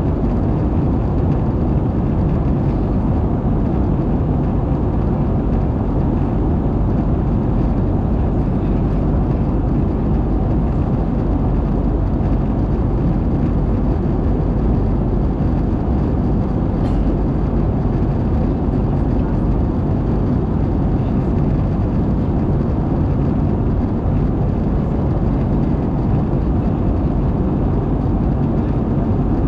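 Steady in-flight cabin drone of an Airbus A220, heard from a window seat beside its Pratt & Whitney PW1500G geared turbofan engine. The sound is even and unchanging, heaviest in the low bass.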